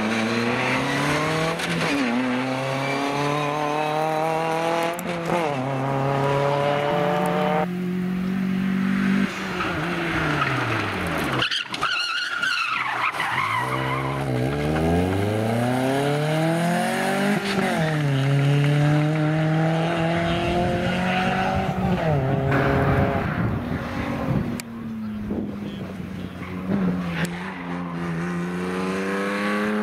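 Rally cars passing one after another at full throttle. Their engines rev up through the gears, with sharp drops in pitch at each shift. Tyres squeal briefly as a car slides through a corner about twelve seconds in.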